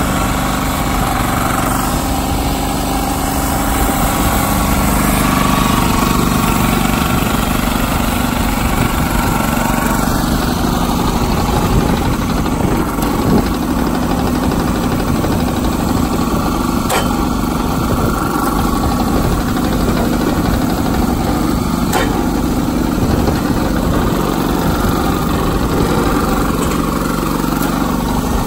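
The MDL Power Up log splitter's small single-cylinder engine running steadily, with a few short sharp knocks as logs are worked on the splitter.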